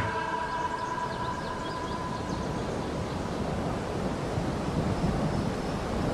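Steady outdoor background noise, an even hiss and rumble with no clear single source.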